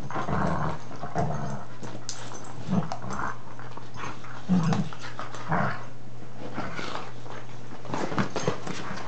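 Two dogs play-wrestling at close range, making short, irregular bursts of dog noises every second or so, the loudest about halfway through.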